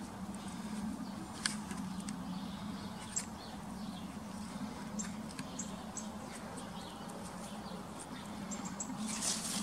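A cat chewing on plant leaves, with scattered small, sharp crunches and clicks over a steady low hum. Near the end the leaves rustle in a denser crackle.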